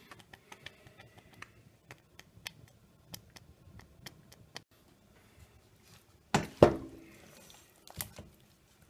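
Apple mash cooked nearly to mush, simmering in a stainless steel pot with scattered small pops and bubbles. About six seconds in comes a loud clunk and scrape as a wooden spoon stirs against the pot, and a smaller one near the end.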